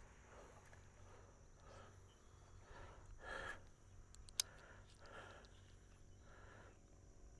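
Near silence, with a few faint soft rustles and one sharp click a little over four seconds in.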